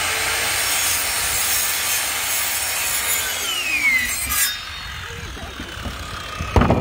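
Circular saw cutting through a Trex composite deck board. A few seconds in the saw is let off and the blade winds down with a falling whine, and near the end there is a sharp knock.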